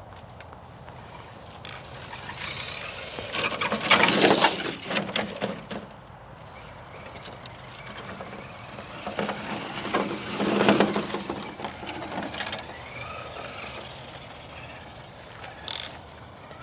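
CEN F450 radio-controlled pickup truck, brushless motor on a 2S battery, driving over dry grass and dirt. Two loud spells of crackling tyre and drivetrain noise come about four and ten seconds in, each lasting a couple of seconds.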